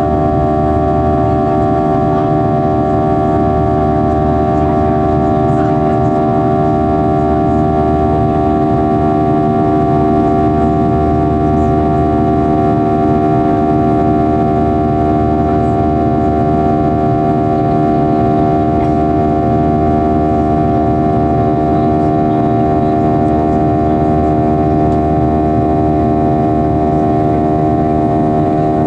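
Boeing 737-800's CFM56-7B turbofan engine running at climb power, heard inside the cabin over the wing: a constant drone of steady humming tones over the rush of airflow.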